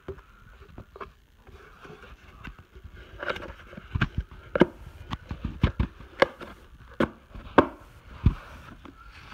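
A cardboard box being handled: a run of irregular sharp knocks and taps that starts about three seconds in and stops near the end.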